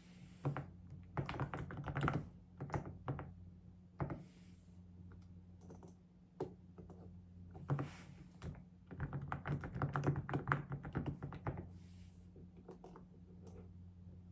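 Typing on a computer keyboard: two quick runs of key clicks with short pauses between, over a steady low hum.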